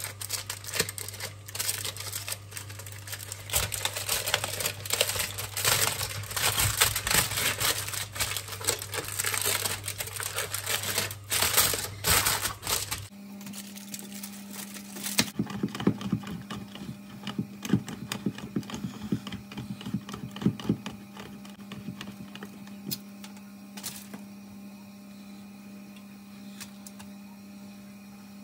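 Block of cheese grated on a stainless steel box grater: fast, rhythmic rasping strokes that change abruptly about halfway in to slower, fainter scrapes, then die away. A steady low hum lies under it.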